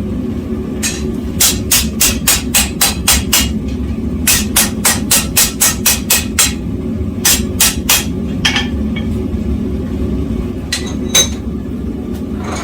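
Hammer blows on hot steel on an anvil: three quick runs of strikes at about four a second, then a few single blows near the end. Under them runs the steady low roar of a propane forge burner.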